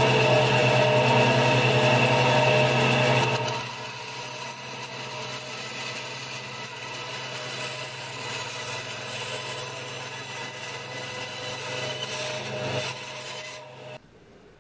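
Bench band saw running with a steady motor hum as its blade cuts a slot into the end of a wooden mallet handle. It is louder for the first few seconds, and the saw sound cuts off just before the end.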